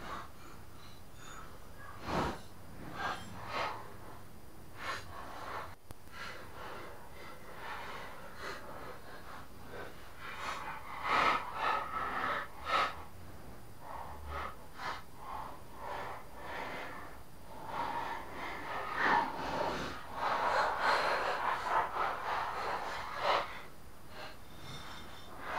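Hand work at the blade hub under a tipped-over lawn mower deck: scattered metal clicks and knocks, with stretches of scraping about ten seconds in and again near the end.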